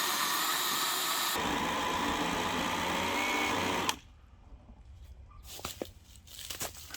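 Einhell 18 V cordless chainsaw running, its electric motor and chain making a steady noise that changes in tone a little over a second in, then stopping abruptly about four seconds in. Faint knocks and rustles follow.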